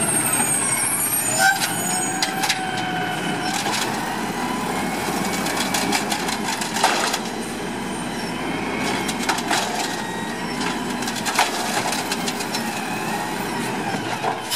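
Automated side-loader garbage truck working a cart pickup: the diesel engine running steadily under hydraulic load, with a wavering hydraulic whine that rises and falls as the arm lifts and dumps a cart. Sharp clanks of the cart and arm against the hopper, twice in the middle of the stretch.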